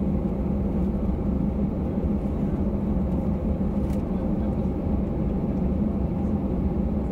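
Airliner jet engines at low taxi thrust, heard from inside the passenger cabin as a steady, even rumble with a low hum.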